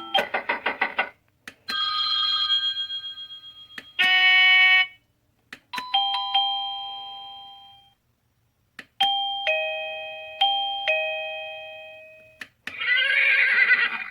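AVANTEK wireless doorbell chime receiver playing a run of different short chime tunes one after another, with clicks and short gaps between them, including a two-note ding-dong played twice. The tunes are being stepped through as the chime is switched from one melody to the next.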